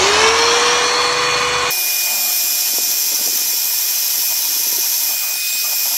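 Corded power tool spinning a bristle brush head against a shoe insole: the motor whines up to speed at the start, then runs steadily with a dense scrubbing hiss from the bristles.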